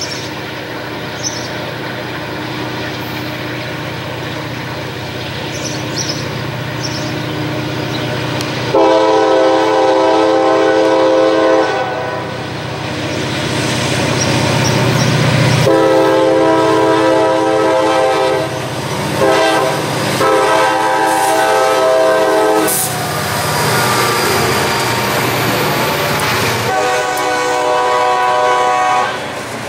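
Freight train pulled by a lashup of EMD diesel locomotives, the engines running with a low rumble as it approaches. The lead unit's air horn then sounds five blasts, long, long, short, long, long: the grade-crossing warning pattern with a final long blast as the locomotives pass close by.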